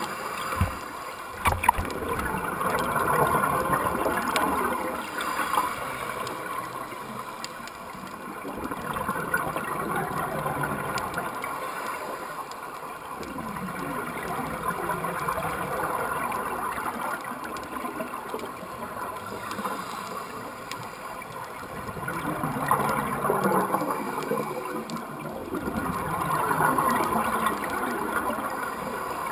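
Scuba diver's regulator breathing underwater, picked up through a GoPro's waterproof housing: exhaled air bubbling and gurgling in slow swells every few seconds. A couple of sharp clicks come about a second in.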